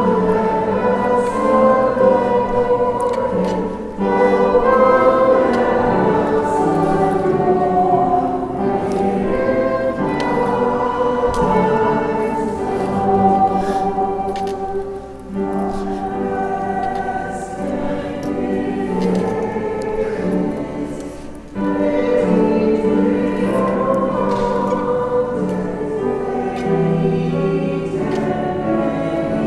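Church choir singing a hymn, the voices held in long phrases with short breaks between them.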